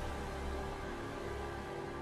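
Background music with held notes over a low steady drone.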